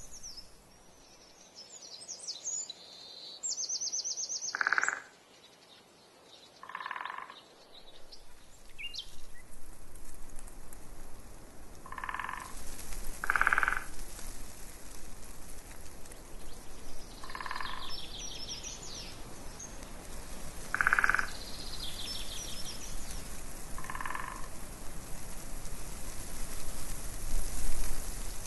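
A frog croaking in short calls, about seven of them, a few seconds apart, with small birds singing quick high trills and chirps in between.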